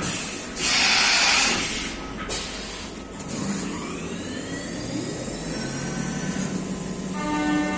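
CNC machine cutting aluminium parts: a loud hiss about a second in, then a whine that rises in pitch and levels off into a steady machine tone.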